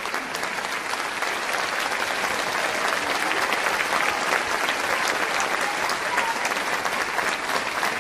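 Concert hall audience applauding steadily after a tenor's song, a dense patter of many hands clapping, calling for an encore.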